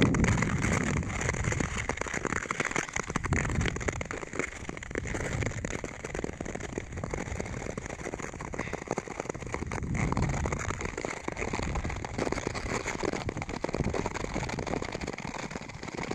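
Nordic skate blades gliding and scraping over snow-dusted natural lake ice: a dense, gritty crackle like rain on a surface, with low rumbles swelling and fading every few seconds.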